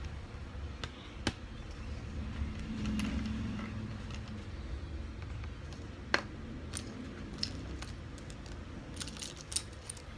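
Small plastic building bricks clicking and clattering as they are picked through by hand on a wooden table: scattered light clicks, a sharper one about six seconds in, and a quick run of clicks near the end, over a low steady background rumble.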